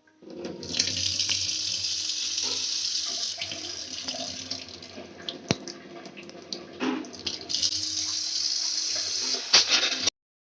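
Water from the submersible pump gushing steadily out of an outlet. The flow weakens through the middle, strengthens again, and cuts off abruptly near the end. A sharp click comes about halfway through.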